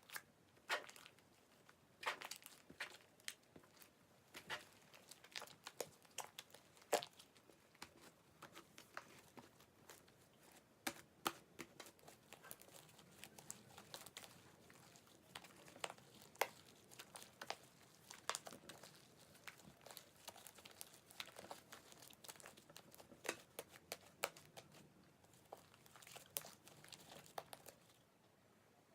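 Slime mixed with crushed Banana Kick corn puff snacks being squeezed and pressed by hand, giving quiet, irregular crackles, crunches and small pops as the snack pieces break. The crackling stops shortly before the end.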